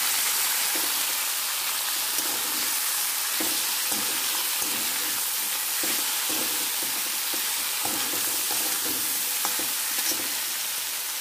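Diced raw green mango frying in hot oil in a kadhai, a steady sizzle, with a spatula stirring through the pieces now and then.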